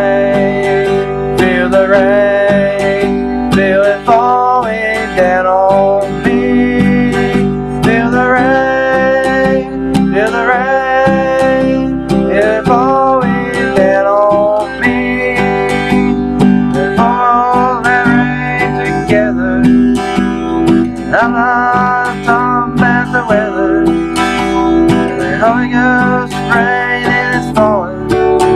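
Acoustic guitar strummed as accompaniment to a singing voice whose pitch slides and wavers from note to note, with no clear words.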